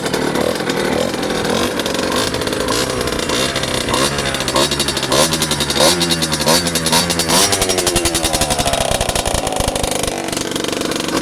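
Two-stroke engine of a Sherco 50cc with a Stage 6 cylinder kit, Polini carburettor and Voca Racing exhaust, running and revved in a quick string of throttle blips from about three and a half to seven and a half seconds in, then dropping back to idle.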